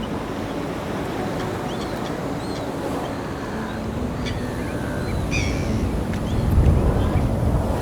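Steady wind and sea noise with a low rumble that swells near the end. Scattered short bird calls come in about four seconds in, with a stronger call around five and a half seconds.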